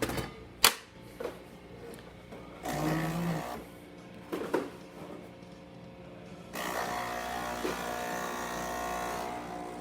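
DeLonghi Magnifica espresso machine brewing a shot: a sharp click under a second in, a short burst of its pump partway through, then the pump buzzing steadily for the last third.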